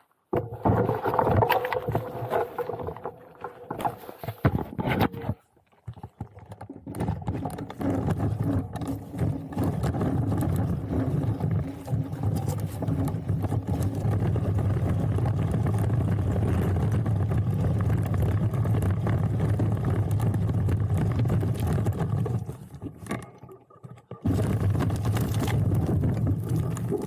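Laotie ES19 electric scooter riding down a rocky gravel trail: a steady low rumble of wind and tyres on loose gravel, with irregular rattling knocks, breaking off briefly twice.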